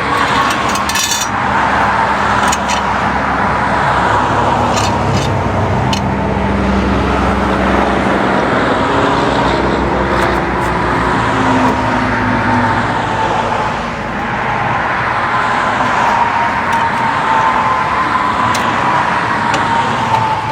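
Steady car and road noise, with a faint constant whine and a few light clicks.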